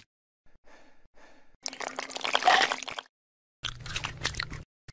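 Wet mud squelching and sloshing in short separate bursts, with the loudest burst about two seconds in.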